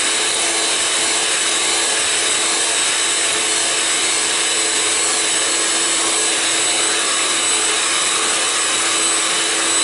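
Electric hand mixer running steadily, its beaters whipping eggs and sugar in a glass bowl for a sponge cake batter: an even motor whine over a whirring hiss.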